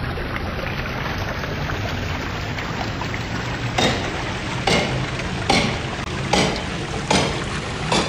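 Food washing machine running: water churning and bubbling steadily in its stainless-steel tank. From about four seconds in, a series of sharp knocks comes roughly once every second.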